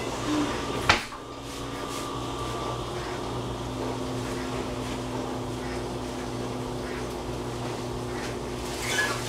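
A steady mechanical hum with a low tone, like a running fan, and one sharp knock about a second in.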